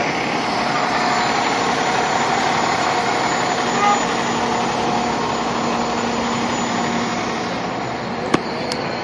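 A fire engine's diesel engine idling steadily, heard up close over city street noise, with a single sharp click near the end.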